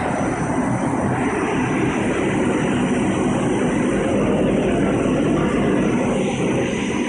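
Pet food production line machinery running: a steady, loud mechanical drone with a low hum underneath.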